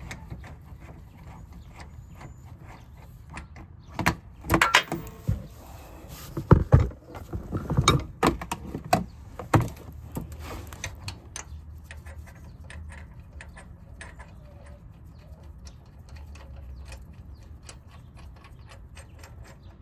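Hand tools clinking and knocking against the crankshaft pulley bolt and holding tool as the bolt is worked out, in irregular clusters of sharp knocks, loudest between about four and ten seconds in, over a low steady hum.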